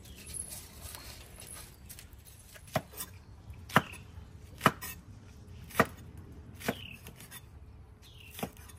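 Cleaver chopping scallions on a cutting board: about seven sharp chops, spaced roughly a second apart, starting nearly three seconds in.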